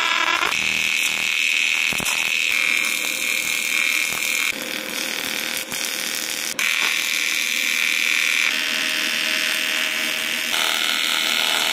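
TIG welding arc on aluminium, a steady buzzing hiss that shifts abruptly in pitch and level several times as different welds are run.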